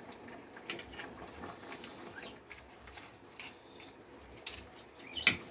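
Light scattered clicks and taps of a small spoon scooping margarine into a nonstick pan, with one sharper click near the end.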